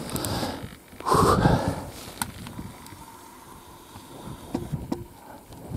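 Handling noise as the camera is swung around: rustling, loudest about a second in, and a few sharp clicks.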